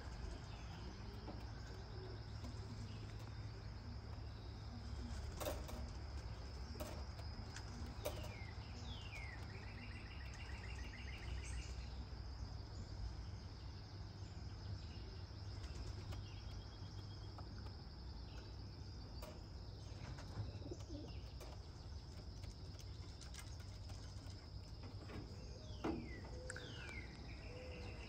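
Faint outdoor ambience: a steady high insect drone, with a few short falling bird chirps and a brief trill a third of the way in, over a low steady rumble.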